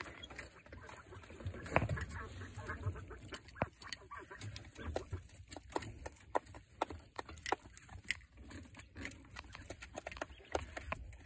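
Coturnix quail in a pen calling, mostly in the first few seconds, with many sharp, irregular clicks of beaks pecking at the feeder tray.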